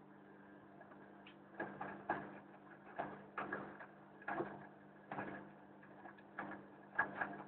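Hoover boilwash washing machine running: a steady motor hum with irregular clunks, roughly one a second, as the drum turns the load.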